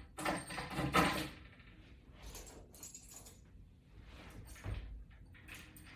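Metal mounting hardware being handled: a few clinks and rattles, loudest in the first second, then faint scattered clicks.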